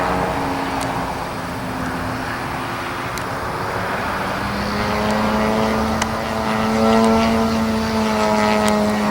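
A 50cc gas engine on a large radio-controlled aerobatic airplane running in flight, a steady propeller drone whose pitch shifts as the plane manoeuvres. It grows louder from about halfway, loudest around seven seconds in.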